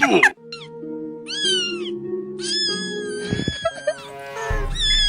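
A cat meowing about four times, each meow rising then falling in pitch, over background music of held notes.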